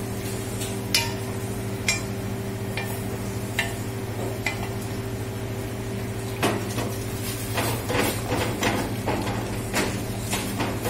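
Steel ladle stirring soup in a stainless-steel pot, clinking against the pot's side a few separate times, then in a quick run of clinks from a little past halfway, over a steady low hum.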